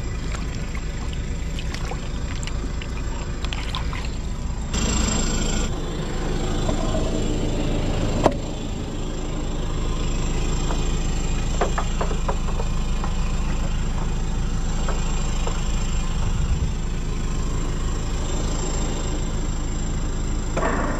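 Tow truck's engine running steadily, with a brief burst of hiss about five seconds in and a sharp knock about eight seconds in.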